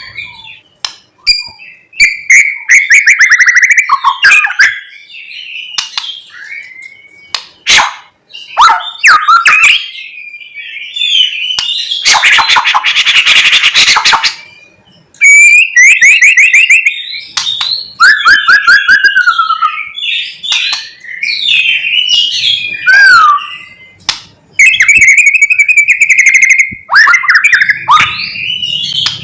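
White-rumped shama (murai batu) singing loudly in a long run of rapid, varied phrases: clear whistles, fast trills and sharp clicks, its song full of mimicked calls of other birds. A harsh, rasping chatter comes in about 12 seconds in and lasts a couple of seconds.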